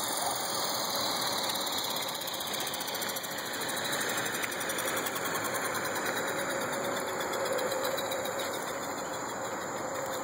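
Align T-Rex 450 Sport electric RC helicopter running on the ground: a steady whir of the spinning main rotor blades and electric motor.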